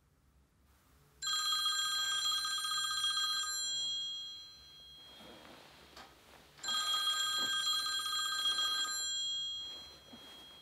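Smartphone ringtone for an incoming call: two rings of about three seconds each, with a short pause between them, each tailing off at its end.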